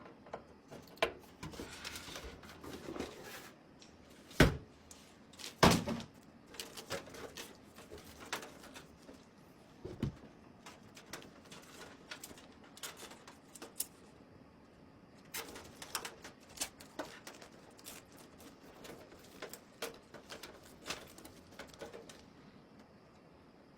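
Hard objects being handled: irregular clicks and taps, with two louder knocks about four and a half and six seconds in.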